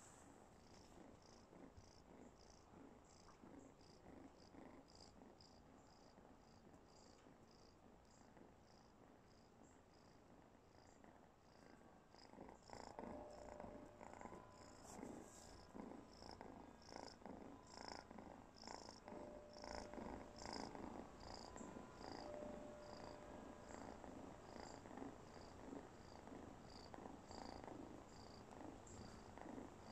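A domestic cat purring faintly in a steady rhythm, growing louder about halfway through.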